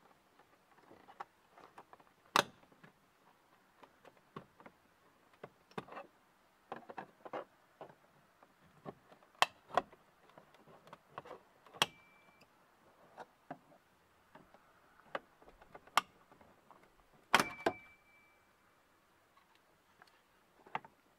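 Plastic interior door trim on a Chevy Express van being pried off with a screwdriver and by hand. Scattered clicks, scrapes and creaks are broken by a few sharp snaps, several seconds apart, as the trim's metal retaining clips let go. Two of the snaps are followed by a brief high ring.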